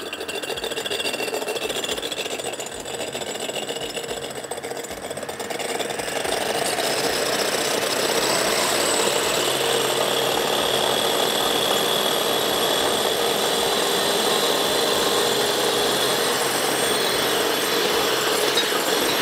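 Electric beater running steadily as it whisks egg whites towards stiff peaks, getting louder about six seconds in.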